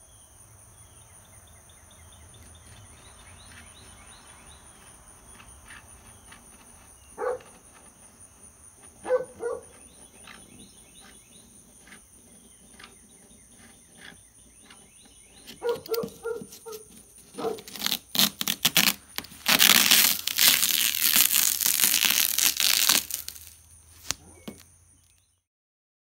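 Utility knife blade cutting and trimming glue-stiffened canvas along a painter's-tape edge: scattered knocks and scraping clicks, then a loud rough tearing that lasts a few seconds near the end.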